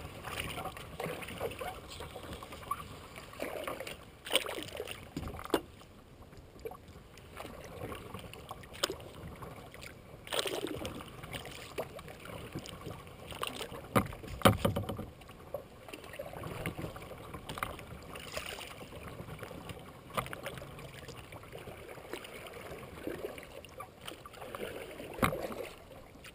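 Kayak paddle strokes in the water: irregular swishes and splashes with dripping, and now and then a sharp knock, loudest about halfway through.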